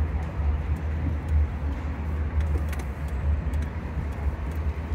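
Wind buffeting a phone microphone in an open-sided aerial tram gondola: a low rumble that rises and falls, with a fainter hiss above it.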